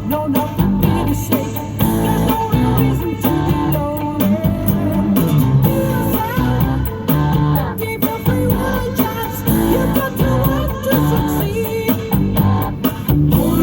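Music: a pop song with guitar, bass, a steady beat and some singing.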